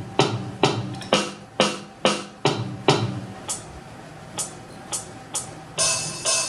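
Rockjam RJ561 electronic keyboard playing drum sounds from its keys in keyboard-percussion mode: a steady run of drum hits about two a second, then a few lighter, sparser hits. Near the end come bright, jingling percussion hits.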